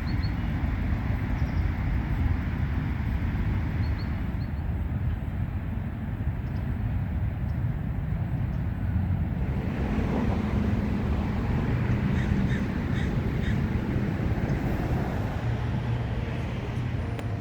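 Crows cawing a few times over a steady outdoor rumble.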